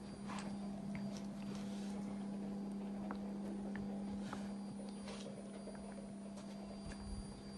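Egg incubator running, its fan giving a steady low hum, with scattered light clicks and taps over it.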